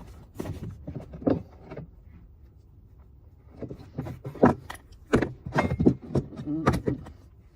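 Old copper pipework being cut and worked loose: irregular metallic clinks, knocks and rattles, with a quieter pause of a second or so near the middle.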